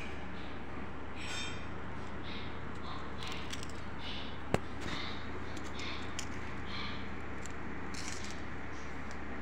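Steady low hum and hiss of background noise, with one short sharp click about four and a half seconds in.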